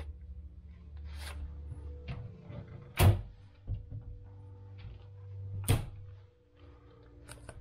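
Wooden wardrobe doors being swung shut, giving a sharp knock about three seconds in and another just before six seconds, with lighter clicks around them, over a low steady hum.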